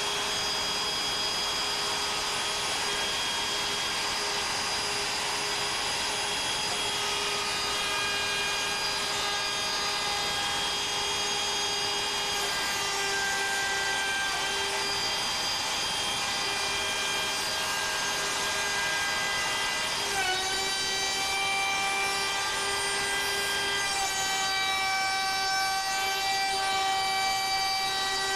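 CNC Shark router's spindle running and its bit routing a pocket in wood. Under the cutting noise, several whining tones step to new pitches every few seconds as the machine changes moves.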